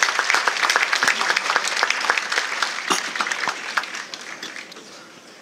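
Audience applauding, a dense clatter of many hands that dies away over the last two seconds or so.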